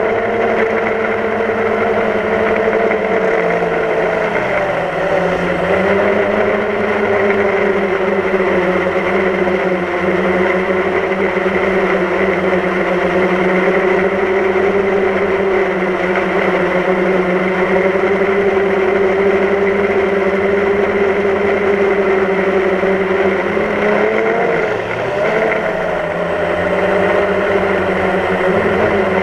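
DJI Phantom quadcopter's electric motors and propellers whirring steadily in flight, heard up close from the GoPro mounted on the drone. The pitch sags and comes back up twice, once about five seconds in and again near the end, as the motors change speed.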